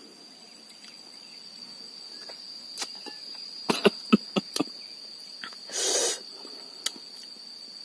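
A steady high insect drone runs throughout. Over it come a quick cluster of sharp mouth clicks and smacks from a man chewing slices of sour lime with the rind, and a short breathy blow-out about six seconds in as he reacts to the sourness.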